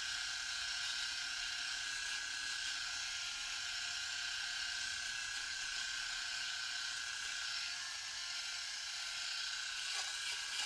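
Cordless three-head rotary electric shaver running with a steady high buzz, cutting stubble on the upper lip and chin in a dry shave.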